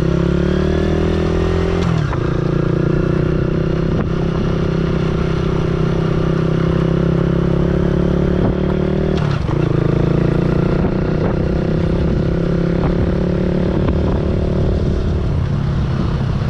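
Kawasaki KSR110's single-cylinder four-stroke engine running while riding, its pitch climbing over the first two seconds, with brief dips in the engine note at about two and nine seconds in before it settles to a steady pull.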